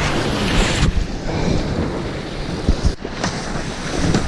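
Wind buffeting the microphone over the rush of water along an Etchells sailboat's hull as it sails down the waves. The loud hiss eases about a second in, and a few low knocks come near the end.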